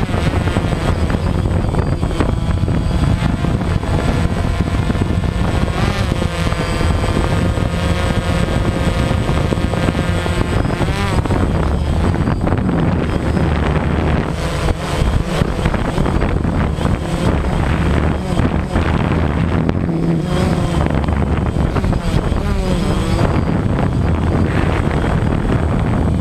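DJI Phantom quadcopter's motors and propellers whirring close up, heard from the camera it carries. A steady multi-tone whir that wavers in pitch as the motors speed up and slow down while it flies.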